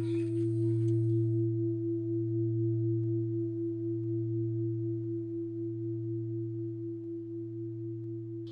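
A deep bell tone ringing on and slowly fading, with a slight steady pulsing. A few bird chirps come right at the start.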